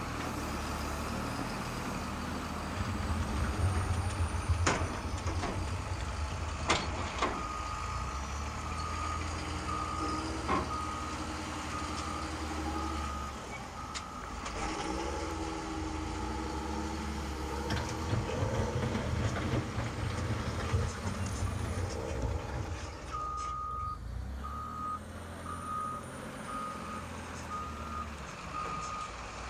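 Radio-controlled Magom HRC hydraulic Liebherr L574 wheel loader working: its reversing beeper sounds in two spells of steady beeps, about one a second, over a low rumble that swells twice, with a few sharp clicks.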